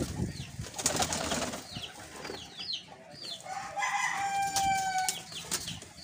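White pigeons flapping their wings in a small coop as they are disturbed from their nest, with repeated short high chirps from other birds and one drawn-out bird call about four seconds in.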